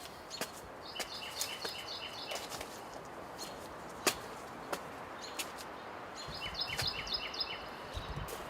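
A songbird singing twice, each time a quick run of repeated high chirps, over a steady outdoor background hiss, with a few scattered clicks.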